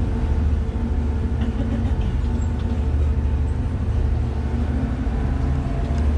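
Water taxi's engine running steadily: a low, even hum with a few steady tones above it.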